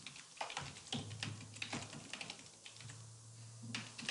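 Computer keyboard typing: a run of quick, uneven key clicks as a phrase is typed.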